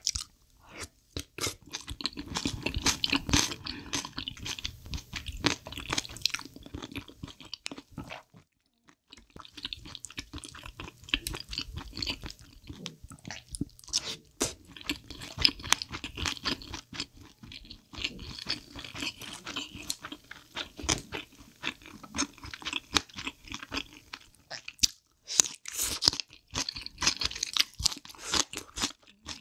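Close-miked chewing of mouthfuls of spicy soupy chicken feet and glass noodles: wet mouth sounds with soft crunches, pausing briefly about eight seconds in.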